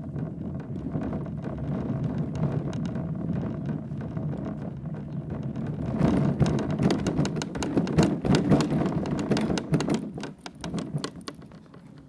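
Kayak being towed on a homemade PVC cart: the wheels rolling over pavement and then bumpy ground, with a steady rumble and a constant clatter of knocks and rattles from the cart and hull. Rougher and louder about halfway through, easing off near the end.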